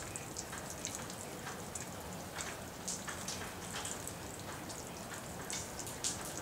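Rain falling, a steady hiss with close drops ticking at irregular intervals, a few a second.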